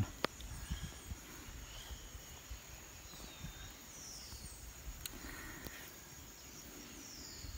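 Faint riverside ambience: insects droning steadily at a high pitch, with a few faint falling chirps and an occasional soft click.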